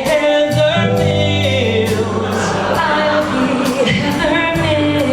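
Live singing with long held notes over a strummed acoustic guitar keeping a steady beat.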